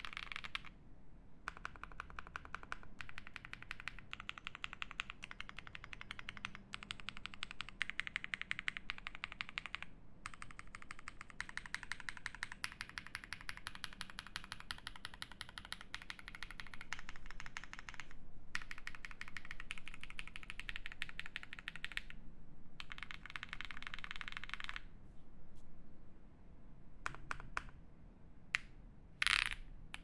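Fast typing on a Jelly Epoch SE mechanical keyboard with lubed Raed 1.5 switches, a polycarbonate plate and GMK keycaps: dense runs of keystrokes with a few short pauses, thinning to scattered single presses near the end, with one louder keystroke just before the end.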